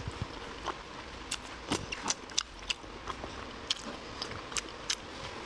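Close-up eating sounds of someone chewing soft, fatty pork belly: a string of irregular wet mouth clicks and smacks.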